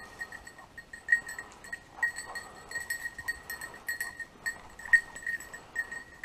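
A bell on a setter's collar ringing irregularly, struck over and over as the dog moves through the cover, over the rustle of dry bracken being pushed through.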